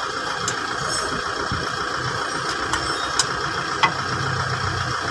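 Steel wrench clicking against the bolts of a front wheel hub bearing as they are tightened: a few sharp metallic clicks, the loudest about three and four seconds in, over a steady mechanical hum.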